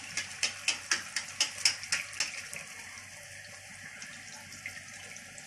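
Bhatura deep-frying in hot oil in a kadhai: a quick run of sharp crackles, about four a second, for the first two seconds, then a steady sizzle.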